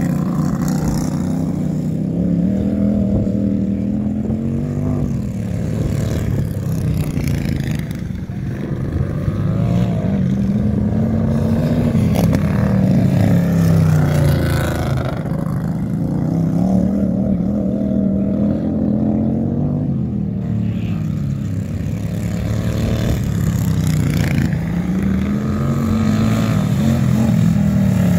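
Several racing lawnmower engines running at high revs as the mowers lap, the engine pitch rising and falling in repeated waves every few seconds as they pass and throttle through the turns.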